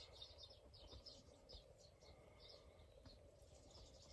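Faint chirping of a flock of small garden birds such as finches at feeders, many short high calls overlapping.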